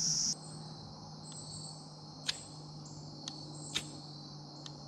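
Crickets trilling steadily, with four short, sharp strikes of a knife against a fire starter in the second half, throwing sparks at a grass tinder bundle to light a campfire.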